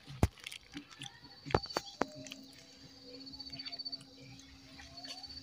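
Rustling and a few sharp knocks of a gloved hand and camera being handled close to the microphone in dry leaves and grass, loudest in the first two seconds, with a faint high insect trill in the background.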